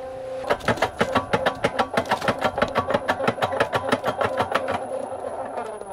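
Portable drum cement mixer running with a steady hum while its drum is tipped to pour wet earthen plaster, with a fast, even knocking of about eight a second. The knocking stops near the end.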